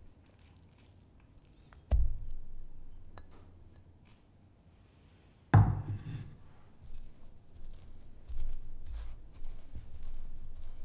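A knock about two seconds in, then a louder knock about halfway through as a lump of solid coconut oil goes into a glass mixing bowl of flour. After that, a spatula scrapes and taps through the dry flour mix in the bowl, cutting the oil in.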